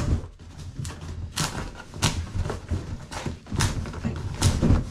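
Handling noise: an irregular series of sharp knocks, clicks and scrapes.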